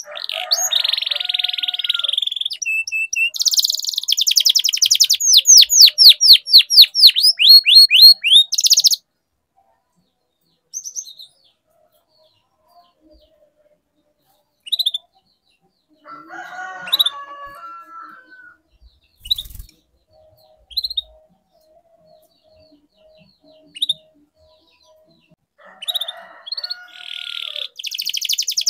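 Domestic canary singing: a loud phrase ending in a fast trill of repeated down-slurred notes over the first nine seconds, then a long pause broken by scattered single chirps and a short lower phrase, before the song starts again near the end.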